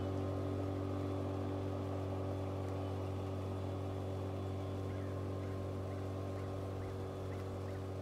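A boat motor running at a steady speed with an even hum, easing off slightly near the end.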